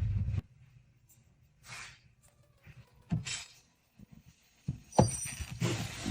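Background music cuts off shortly in, followed by a few scattered knocks and clatters, the loudest about five seconds in, and a brief hissing rush near the end.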